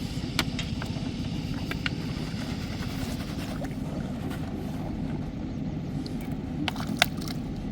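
A small engine running steadily with a low, fast-pulsing rumble, with a few sharp clicks over it, the loudest about seven seconds in.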